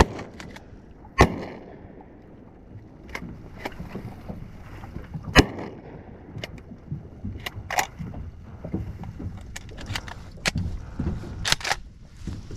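Two shotgun shots about four seconds apart, each a sharp crack with a trailing echo, followed by lighter clicks and knocks over a low rumble.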